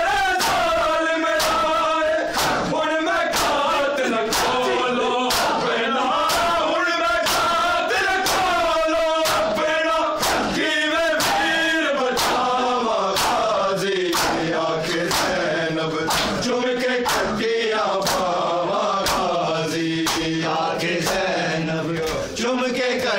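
A group of men chanting a nauha (Shia mourning lament) in unison, with the sharp slaps of open hands beating bare chests (matam) keeping time about twice a second.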